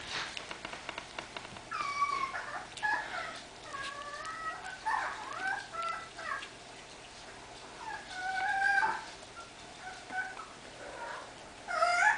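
Three-week-old chihuahua puppies squeaking and whining in high, wavering cries as they mouth at each other in play. The cries come in several short bouts.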